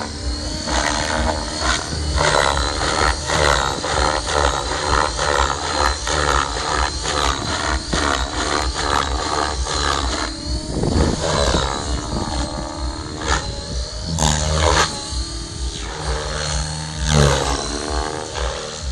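Radio-controlled Align T-Rex 600 Pro helicopter flying aerobatics: rapid rotor-blade chop with a steady high whine, its pitch rising and falling as the helicopter manoeuvres.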